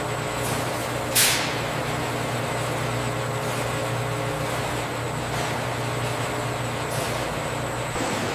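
Steady hum and rush of food-processing-line machinery, with a low drone underneath. A short, sharp hiss of air breaks through about a second in.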